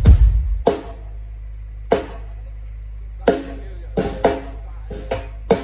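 Drum kit being checked through a large PA sound system, one hit at a time. A heavy bass-drum boom comes at the start, then single snare and tom strikes at uneven gaps of about half a second to a second, with a steady low hum underneath.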